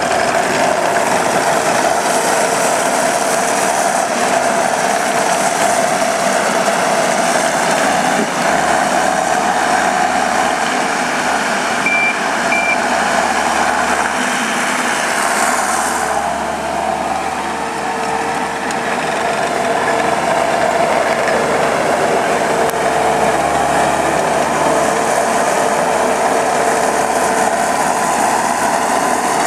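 Takeuchi TL150 tracked skid steer loader's 97-horsepower diesel engine running steadily while the machine is worked. Two short high beeps come about twelve seconds in.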